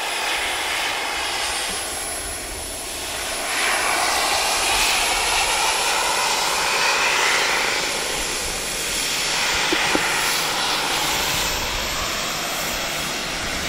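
Turbine-powered radio-controlled Kaman K-MAX model helicopter in flight: a steady turbine and rotor rush with a thin high whine, swelling and easing in loudness every few seconds.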